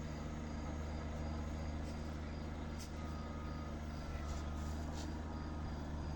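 Diesel engine of heavy road-works machinery running steadily, a low even drone, with a faint thin tone for a second or two about halfway through and a few light clicks.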